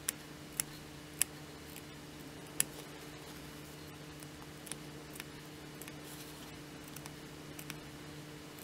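Small pointed scissors snipping notches into the seam allowance of a sewn cotton fabric circle: a few sharp snips, the loudest in the first three seconds, then fainter ones. A faint steady hum runs underneath.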